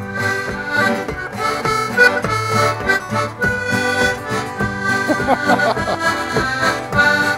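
An accordion and an acoustic guitar playing a lively tune together: the accordion carries the melody in sustained reedy notes over steady guitar strumming.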